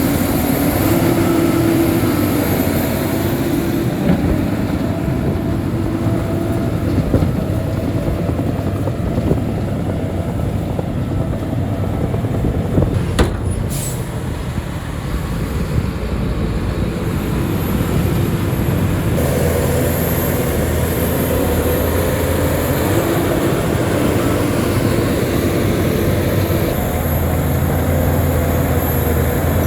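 Diesel engine of a Shantui crawler bulldozer running steadily under load, its pitch rising and falling a little, with a few sharp metallic clanks and squeals from the machine.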